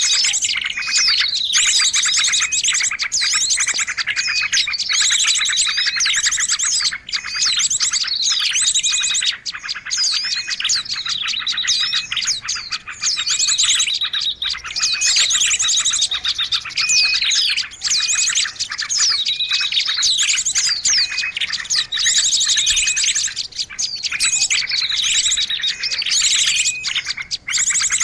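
Small songbird chirping non-stop in rapid, high, repeated phrases with quick falling whistles, a bird-lure (pikat) call recording.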